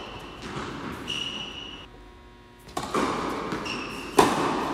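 Tennis serve on an indoor hard court: a sharp pop of racket on ball near the end. Before it come a few duller knocks and short high squeaks.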